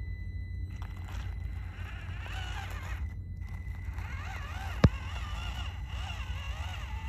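Small radio-controlled Suzuki Jimny crawler driving over gravelly dirt: tyres crunching and scraping, over a steady low rumble. A single sharp click about five seconds in.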